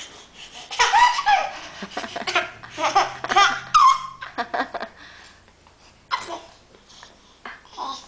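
A baby laughing in high-pitched bursts, most of them in the first four seconds, with a couple of shorter laughs near the end.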